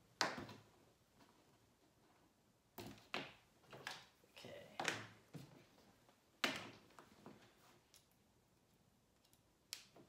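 Cable-handling noises: about seven sharp clicks and knocks, spread irregularly, with soft rustling in between, as USB-C cables are unplugged, moved and coiled on a workbench.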